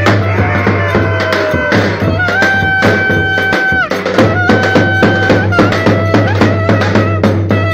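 Traditional Turkish folk dance music played loud, with a steady, quick drum beat under a melody that wavers and then holds two long notes near the middle.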